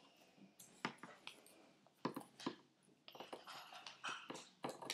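Small scissors snipping paper: a few short, crisp snips spread out, with soft paper rustling from about three seconds in.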